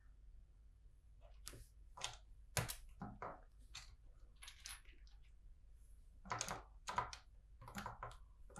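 Plastic LEGO bricks clicking and rattling as they are handled and pressed together: a string of separate light clicks at an irregular pace, bunching up in the second half.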